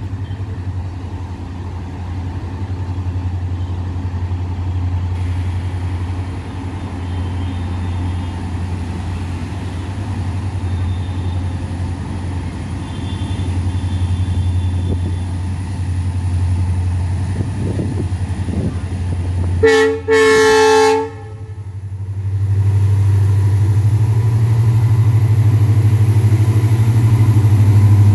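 WDG4D diesel locomotive's 16-cylinder two-stroke EMD engine running with a steady low drone as it hauls a loaded goods train in. About two-thirds of the way through it sounds its horn, a brief toot then a blast of about a second, and the engine grows louder near the end as the locomotive comes close.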